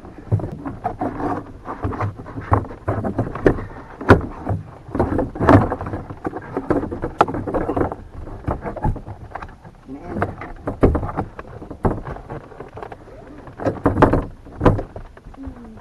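Irregular clicks, knocks and rubbing as a seat belt harness and plastic interior trim are handled and worked back into place, with a few sharper knocks about four seconds in and near the end.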